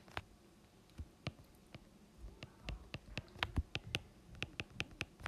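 Stylus tip tapping on a tablet's glass screen while handwriting: an irregular run of light clicks, sparse at first and coming more often from about a second in.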